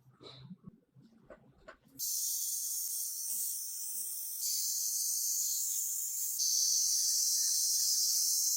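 Faint clinks, then about two seconds in a loud, steady, high-pitched hiss of air starts, grows louder in two steps and cuts off suddenly.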